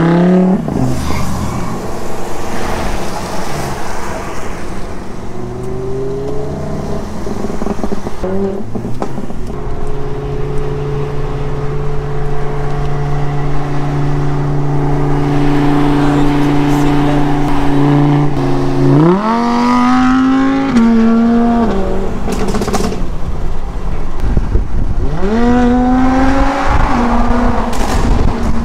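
Car engines at speed, heard from inside the cabin: a steady engine drone, then twice, about 19 and 25 seconds in, the revs climb hard and drop back as the cars accelerate.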